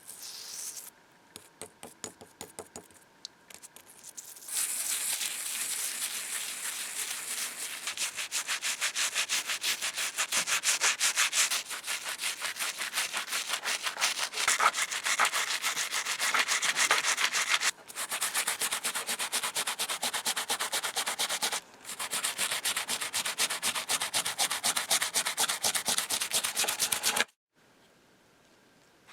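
Rapid back-and-forth scrubbing of an abrasive or brush against an ornate cast iron drawer pull. A few light strokes come first, then steady brisk scrubbing with two short pauses, stopping abruptly near the end.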